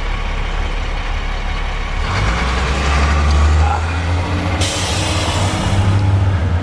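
School bus diesel engine rumbling as the bus drives past, growing louder about two seconds in. About four and a half seconds in, a sharp hiss of air cuts in and trails off, like a bus's air brakes.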